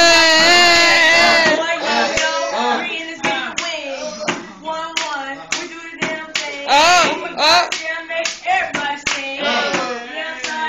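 A pen tapped on a school desk beating out a rough rhythm of two or three strokes a second, under a voice freestyle rapping over it. A loud voice holds a long note at the start, and there is a loud shout about seven seconds in.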